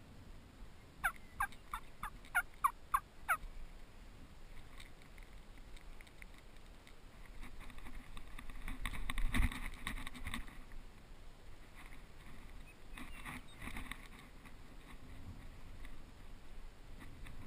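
A quick series of seven turkey yelps, each note sliding down in pitch, about a second in. Later, rustling in dry grass and a dull thump as the camera is moved, then more rustling.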